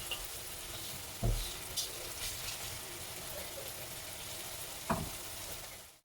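Sliced onions sizzling steadily as they fry in sunflower oil in a pan over medium heat, with two short knocks, about a second in and near the end.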